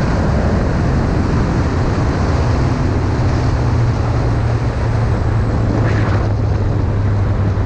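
Engine of a Radical SRF3 open-cockpit race car heard from onboard at track speed, with heavy wind noise on the microphone; the engine note drops and holds steady at a lower pitch about three seconds in.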